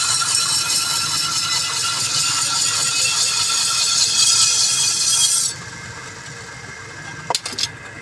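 Metalworking tool running with a steady hiss that cuts off about five and a half seconds in, followed by a few sharp clicks near the end.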